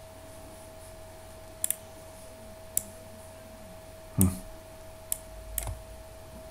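Scattered computer mouse clicks: a quick double click, then several single clicks, with a louder knock about four seconds in, over a faint steady tone.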